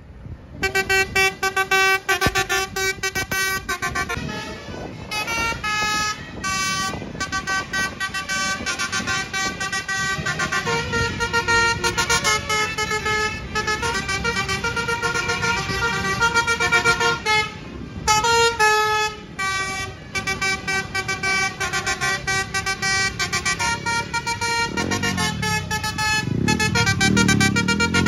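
Bus's telolet Basuri horn playing a tune: loud, rapidly pulsing notes that step from pitch to pitch, pausing briefly about two-thirds of the way through.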